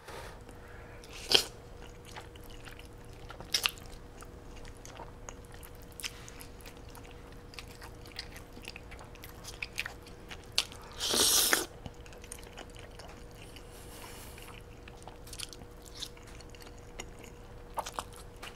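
A person eating chewy noodles close to the microphone: soft chewing and mouth clicks throughout, with one loud slurp lasting about a second around the middle. A faint steady hum runs underneath.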